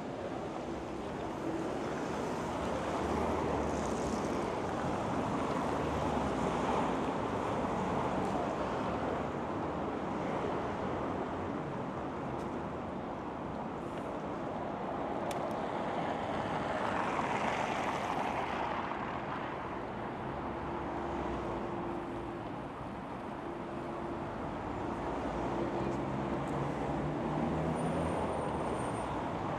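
City street traffic: cars driving along a multi-lane road. The noise swells and fades as vehicles pass, loudest about seven and eighteen seconds in.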